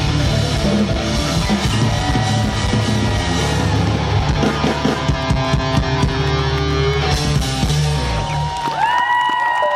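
Live rock band playing an instrumental passage on electric guitars, bass and drums. About eight seconds in the bass and drums stop, leaving a few held higher notes ringing.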